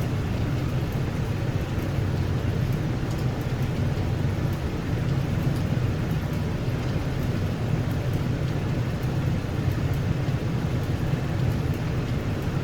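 Steady low hum and rush of running machinery, with no changes.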